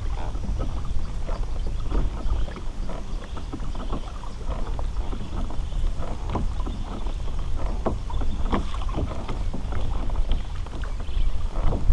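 Wind buffeting the microphone as a steady low rumble, with small water splashes and knocks against a kayak's hull coming irregularly throughout.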